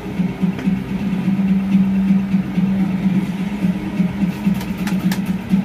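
Steady low machine hum with a faint pulse, with a few light clicks near the end.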